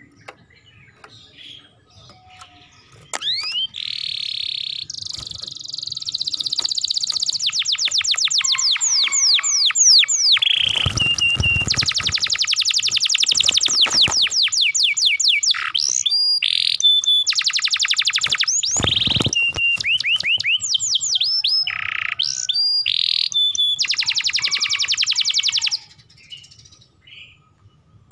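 Domestic canary singing a long, loud song of rapid trills and rolls mixed with sweeping whistled notes, starting about three seconds in and stopping abruptly about two seconds before the end.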